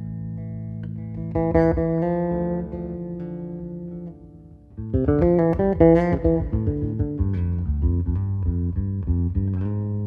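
Six-string electric bass playing a slow intro of held chords and ringing notes. After a short dip about four and a half seconds in, a quick flurry of strummed notes comes in, followed by a string of repeated plucked notes.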